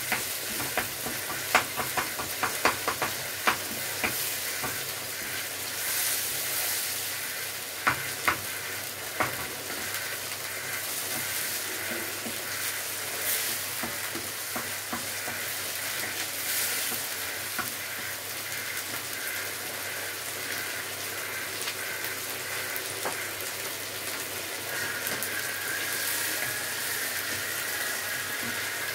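Minced beef, peppers and tomatoes sizzling in a frying pan, stirred with a wooden spatula. The spatula scrapes and knocks against the pan, often in the first ten seconds or so and only now and then after that.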